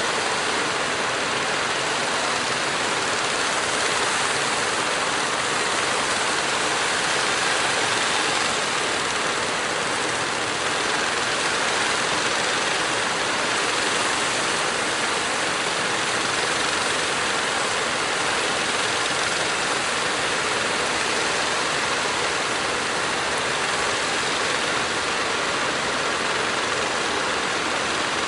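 Steady rush of breaking surf and churning seawater, with the engines of motorised wooden fishing boats running underneath.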